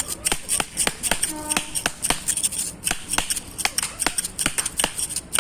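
Metal spoon clinking rapidly and rhythmically against a tin mixing cup as chanachur is tossed and mixed, about three to four sharp clinks a second.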